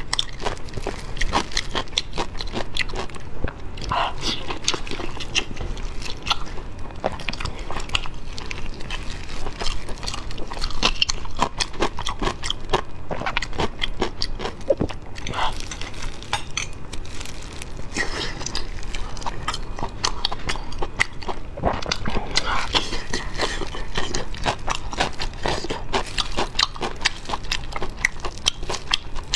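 Close-up eating sounds: a steady run of wet chewing, biting and lip smacking, mixed with the tearing apart of glazed, sesame-coated pieces of food by gloved hands.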